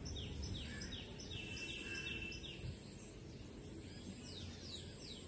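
A bird calling a run of short falling notes, about two or three a second, over a low steady outdoor rumble. The run stops about halfway through, and a few more notes come near the end.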